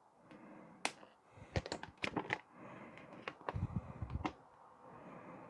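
Hand handling noise: a string of sharp clicks, mostly between one and a half and four seconds in, mixed with soft knocks.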